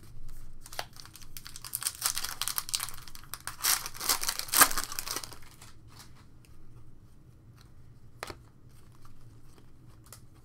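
Foil wrapper of a 2019 Panini Prizm Baseball card pack torn open and crinkled, loudest about four and a half seconds in. Then a few faint clicks as the cards are handled and slid apart.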